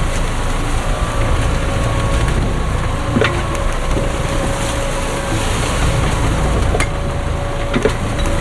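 Wind buffeting the microphone and the rush of sea aboard a sailing yacht under way in near-gale winds, with a faint steady hum and a few sharp clicks or creaks about three and seven seconds in.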